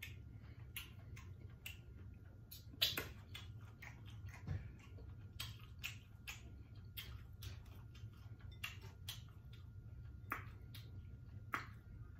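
Close-up mouth sounds of someone eating: irregular soft clicks and smacks of chewing, roughly one or two a second, over a low steady hum.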